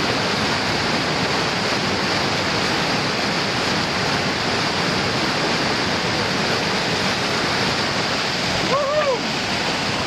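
Whitewater rapid pouring over rocks, a loud, steady rush of water. About nine seconds in, a brief call rises and falls twice.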